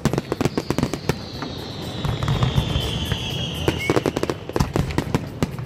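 Fireworks display: rapid bangs and crackling of bursting aerial shells, one after another, over a low rumble. A long whistle falls slowly in pitch from about half a second in to about four seconds in.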